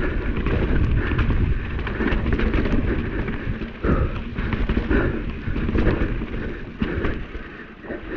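Santa Cruz Hightower 29er mountain bike descending a wet, rocky trail: tyres on wet ground and rock, with the bike rattling and knocking over bumps and wind rumbling on the camera microphone.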